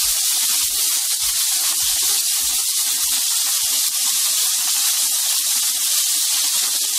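Beef steak slices sizzling in a pan of hot sauce: a steady hiss with scattered small pops and crackles.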